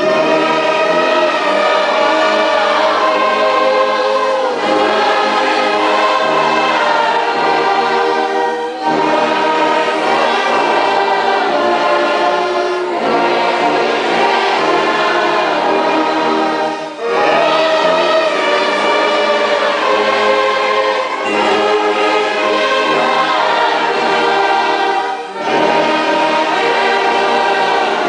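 Church orchestra and congregation singing a hymn together, in even phrases with a brief breath between them about every four seconds.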